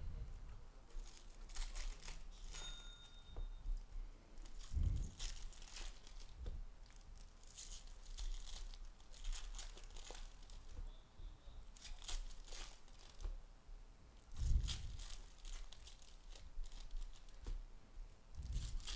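Foil wrappers of Topps baseball card packs being ripped open and crinkled, with cards handled, in short repeated rustling bursts. There are two dull thumps, about 5 and 14 seconds in.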